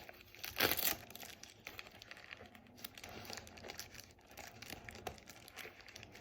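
Packaging being pulled open by hand: crinkling and tearing, with one louder rip or rustle about half a second in, then quieter scattered crinkles.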